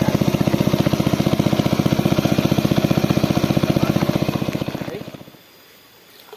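Small engine of a portable water-suction pump running with a rapid, even beat, then winding down and stopping about five seconds in.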